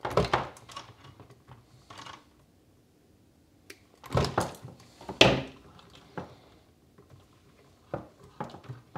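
Wire strippers clamping and pulling insulation off the ends of a fluorescent light ballast's thin lead wires: a few short snaps and clicks with the rustle of wires being handled. The sharpest snap comes about five seconds in.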